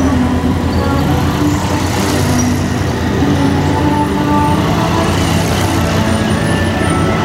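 A large tour bus's engine running as it drives past close by, with light-show music playing underneath.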